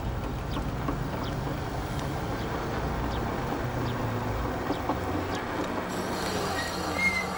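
Steady rumble of road traffic and street noise as the bicycle moves along, with a couple of short high chirps near the end.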